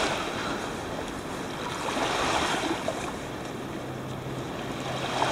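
Small lake waves lapping and washing onto a sandy shore, a steady wash that swells about two seconds in and again near the end.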